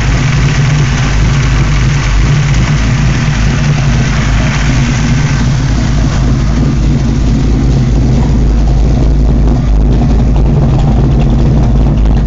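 Chevrolet 454 big-block V8 idling steadily.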